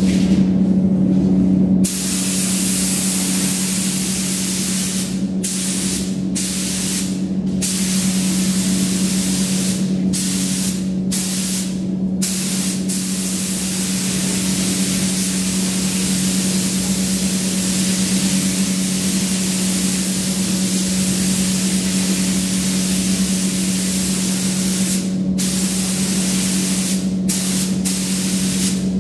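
Paint spray gun hissing in long bursts, cut off briefly a number of times as the trigger is released, over a steady low hum.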